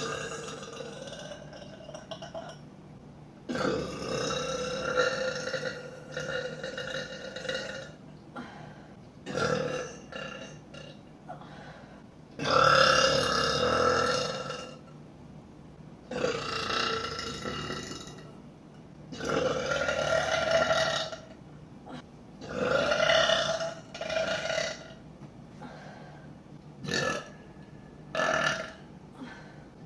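A woman burping over and over: about ten long, drawn-out belches of one to two seconds each, with short pauses between. The loudest comes around the middle.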